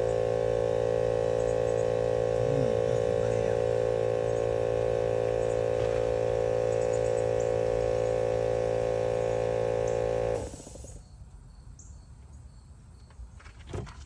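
Steady mechanical hum with a strong fixed pitch, from a machine running, that cuts off suddenly about ten seconds in; a few faint clicks follow near the end.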